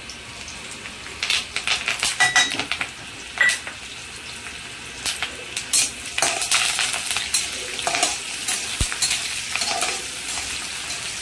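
Green chillies and curry leaves sizzling in hot oil with garlic and fennel seeds in a kadhai. A utensil scrapes and clinks against the pan as they are stirred, in irregular strokes, a few of which ring briefly.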